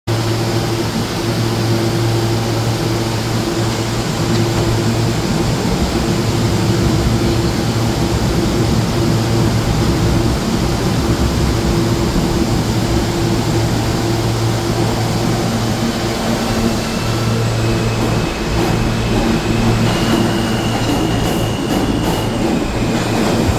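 New York City Subway R160 train standing at a platform with a steady electrical hum, then pulling out from about 17 s in, its traction motor whine stepping up in pitch as it gathers speed, with some wheel-on-rail clatter near the end.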